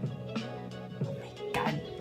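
Background music with evenly recurring notes and a light beat.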